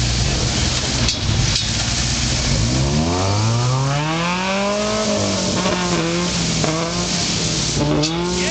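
Rock crawler buggy's engine under load on a steep rock climb: it revs up sharply about two and a half seconds in, then holds at high revs with the pitch wavering up and down, over a constant hiss.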